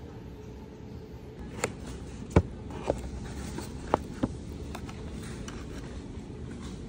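A kraft-paper takeout box being handled and its flaps opened: about seven short, sharp taps and clicks, the loudest a little over two seconds in, over a steady low background hum.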